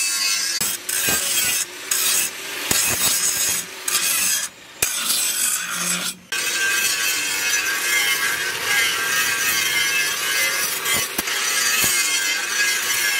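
Handheld angle grinder's abrasive disc grinding the spring steel of a leaf-spring knife blank: a loud, high-pitched grinding hiss. It breaks off briefly several times in the first six seconds, then runs unbroken.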